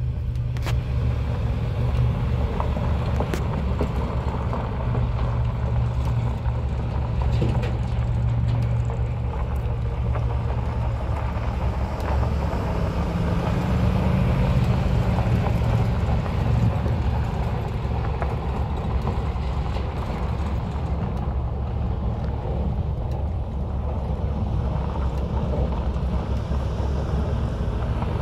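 2001 Dodge Ram 3500 utility truck running as it is driven around at low speed, a steady low engine rumble. The pitch rises for a couple of seconds about halfway through as it picks up a little speed.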